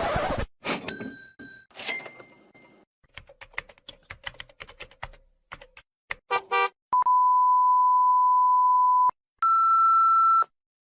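A string of separate sound effects: a brief noise burst, two short ringing tones, about two seconds of rapid computer-keyboard typing clicks, then two long beeps: a steady, pure censor-style bleep of about two seconds, followed by a shorter, higher beep.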